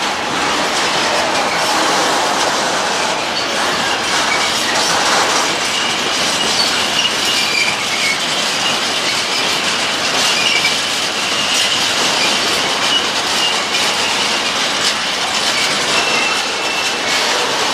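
Aluminium freight train of covered coil wagons and flat wagons rolling past: a steady rumble of steel wheels on rail with repeated clicks over rail joints and a thin, high wheel squeal coming and going.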